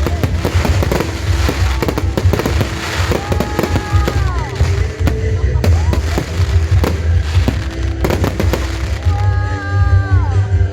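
Fireworks bursting and crackling in rapid, continuous succession, with loud music playing alongside; pitched notes in the music slide downward twice.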